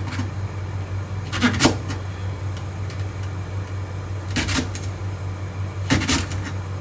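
Kitchen knife slicing green onions on a cutting board: three small groups of sharp knocks, two or three cuts each, a second or more apart, over a steady low hum.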